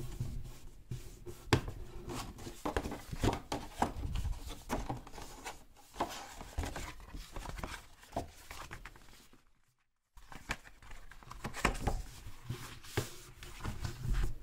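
Paper being folded and creased by hand: irregular rustling, crinkling and rubbing, with small taps as the sheets are pressed against the table. The sound drops out completely for under a second about two-thirds of the way through.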